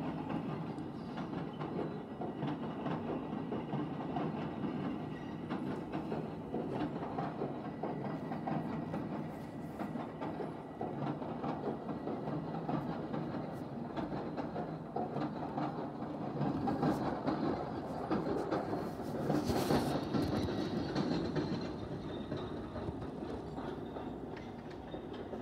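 LIRR M7 electric multiple-unit train rolling into a station, a steady rumble with its wheels clicking over the track, and a brief burst of noise about twenty seconds in.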